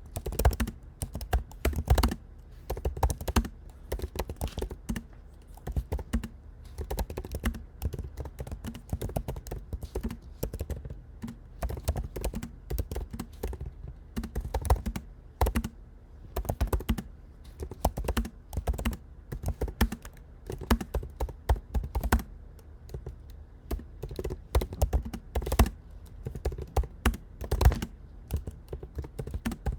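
Fast, continuous typing on a MacBook Pro 14-inch's built-in laptop keyboard: a quick, uneven patter of low-travel key clicks with occasional heavier keystrokes.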